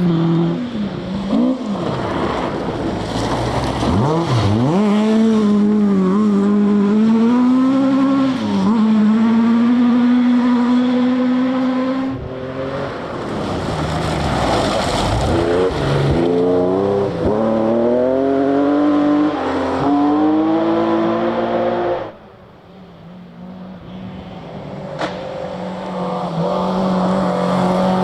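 Rally cars driven hard one after another, engines revving high with pitch climbing and dropping through gear changes and lifts off the throttle. Near the end the sound drops sharply and another car builds up.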